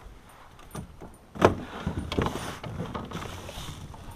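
A sharp knock about a second and a half in, then rustling and light clattering of gear being handled aboard a fishing kayak.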